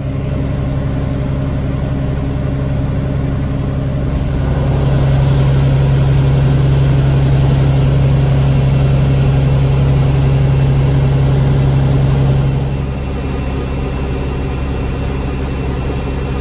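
Tractor engine running steadily with a low hum; about four seconds in it grows louder and holds, then drops back to its earlier level near the thirteen-second mark.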